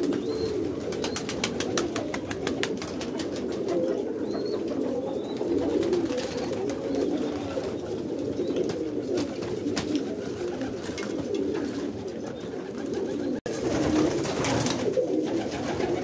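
Many domestic pigeons cooing at once, a continuous overlapping chorus of low coos with scattered light clicks. It drops out for an instant about thirteen seconds in.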